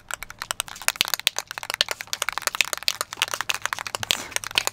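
Aerosol spray paint can being shaken hard, the mixing ball inside rattling in many quick, irregular clacks as the paint is mixed before spraying.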